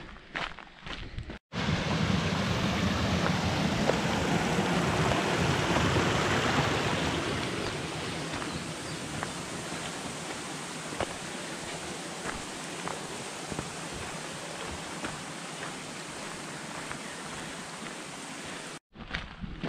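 Steady rushing of running water, louder for the first several seconds and then even, beginning and ending with abrupt cuts. Before the first cut, about a second and a half in, there are footsteps on a gravel path.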